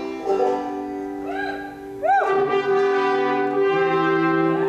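Brass quintet playing a phrase of held notes in answer to the banjo's opening call, with a couple of quick pitch bends around the middle. A low tuba note comes in about three-quarters of the way through.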